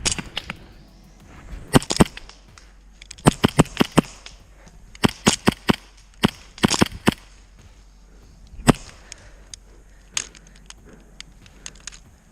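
Gas-powered airsoft pistols firing sharp pops, in quick strings and single shots. The fastest string comes about three seconds in, with lone shots near the end.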